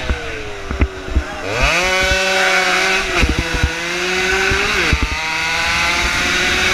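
Small 115 cc motorcycle engine heard from on board the bike. Its pitch sinks in the first second, jumps up sharply about a second and a half in and climbs steadily, drops suddenly about five seconds in, then rises again. Several sharp knocks from the ride are mixed in.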